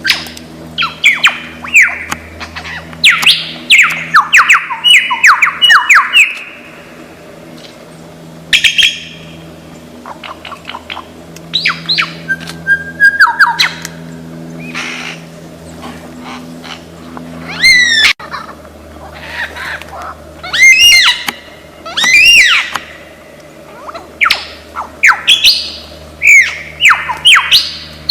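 Lyrebird singing: a varied run of loud, rapid whistled notes, many sweeping down in pitch, in bursts with short pauses between them, over a steady low hum.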